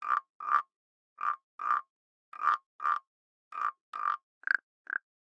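An animal giving short croaking calls, mostly in pairs: ten calls in all. The last two are shorter and slightly higher.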